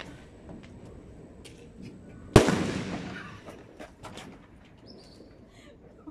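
A paloma, a triangular Mexican firecracker, exploding with one loud, sharp bang about two seconds in, followed by a short echo that dies away over about a second. Faint pops of other fireworks sound in the distance.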